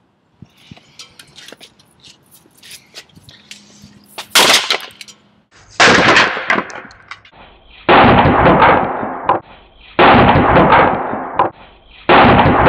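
Sledgehammer smashing a wooden paddle resting on cinder blocks: a few light knocks, a sharp crack, then four loud crashes about two seconds apart as the wood splits and breaks, each trailing off over a second or so.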